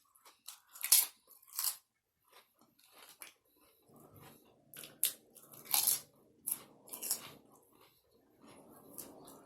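A person chewing crunchy food close to the microphone: irregular crisp crunches between quieter chewing, with the loudest bites about a second in and again around six seconds.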